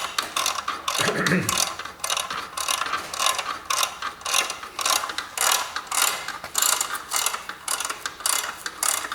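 Ratcheting wrench clicking stroke after stroke, each stroke a quick run of clicks, as it backs off a threaded rod holding a compressed front coil spring, slowly letting the spring's tension off.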